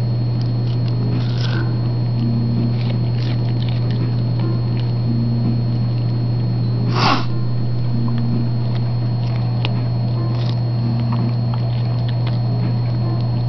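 Dog chewing a short broccoli stalk, with scattered small crunches and one louder burst of noise about halfway through, over a steady low hum.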